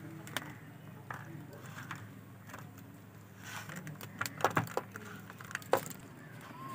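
Chicken legs being pressed and turned by hand in flour in a metal plate: soft rubbing with scattered sharp metallic clicks and taps against the plate, a cluster of them about four to five seconds in, over a steady low hum.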